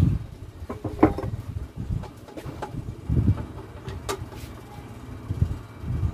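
Metal clinks and knocks of hand tools and parts against a small gasoline engine and wooden workbench, with a sharp clack near the end, over a low uneven rumble.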